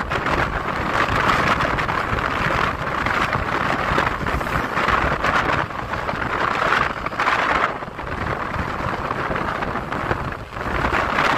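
Wind rushing over the microphone of a moving motorcycle, mixed with the bike's running and road noise, swelling and easing every few seconds.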